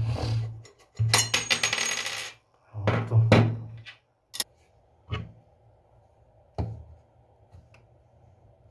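Small metal parts of a Veglia mechanical alarm clock clinking and rattling on a hard surface as the movement is taken apart. A ringing metallic rattle comes about a second in, followed by a few separate sharp clicks.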